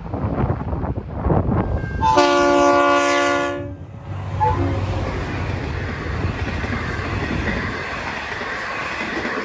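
Wind buffeting the microphone at first. About two seconds in, a V/Line N-class diesel-electric locomotive sounds its horn, a chord of several notes held for about a second and a half. The train then passes with a steady rumble of wheels on the rails.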